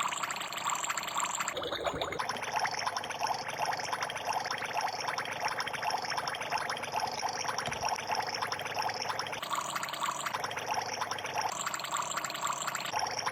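Water pouring and trickling steadily, its tone changing abruptly a few times.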